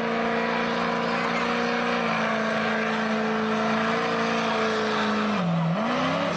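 Ford Super Duty pickup's Power Stroke diesel V8 running at steady high revs under full load while dragging a truck-pulling sled. Near the end the engine note dips, rises briefly, then falls away as the truck comes to a stop at the end of its pull.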